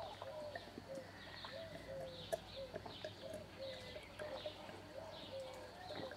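Birds calling and chirping, faint: a quick run of short repeated notes, about three a second, with higher chirps over them.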